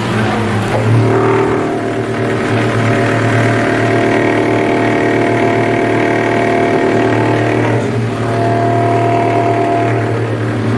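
A machine's motor running steadily with a strong low hum, its tone shifting slightly about eight seconds in.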